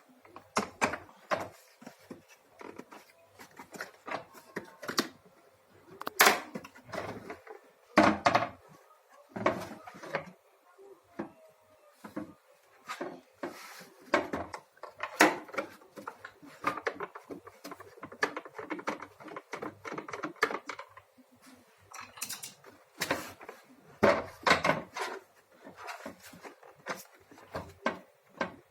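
Irregular clicks, knocks and scrapes of a vacuum cleaner's plastic housing and parts being handled and taken apart by hand.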